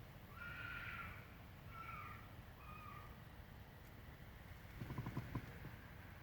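Three faint, short screaming calls from an unidentified animal in the first three seconds, the first the longest, followed by a few soft thumps about five seconds in. The caller likens the noise to a dog, cat or fox.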